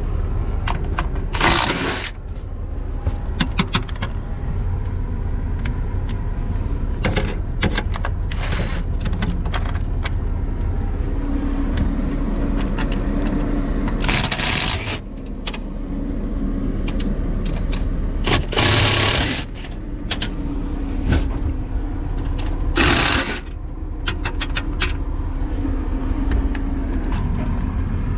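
Metal tools and steel parts clicking and clanking over a steady low rumble, with four rushes of hiss about a second long each.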